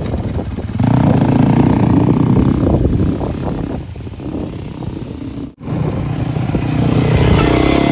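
Dirt bike engine running on a motocross track, breaking off abruptly about five and a half seconds in and picking up again.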